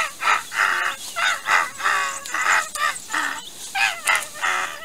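Crow cawing: a rapid run of about a dozen short, harsh caws, two to three a second.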